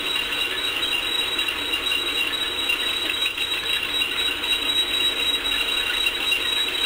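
Threshing machine, a 1946 Keck-Gonnerman Rice Special, running under load with a steady, even rattle and clatter.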